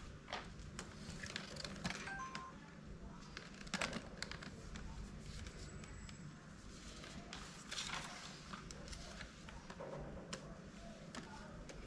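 Scattered light clicks and knocks of plastic electric-fan parts being handled and fitted together during assembly, with a few short high beeps.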